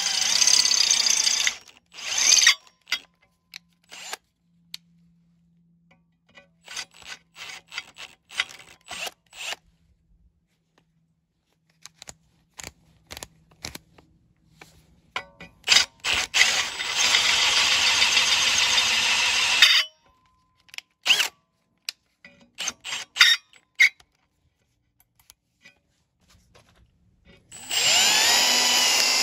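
Milwaukee M18 brushless cordless hammer drill/driver drilling through rusty steel plate with a twist bit. It runs in several bursts: two short ones at the start, one of about four seconds in the middle and another near the end, with clicks and knocks of handling between them.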